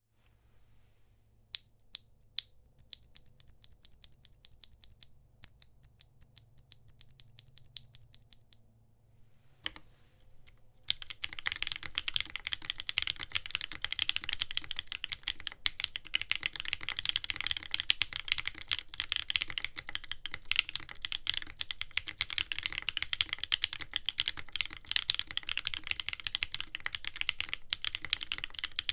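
Neo Ergo mechanical keyboard with lubed and filmed Gateron Milky Yellow Pro linear switches on a POM plate, being typed on: slow, separate keystrokes for the first nine seconds, a single thud near ten seconds, then fast continuous typing.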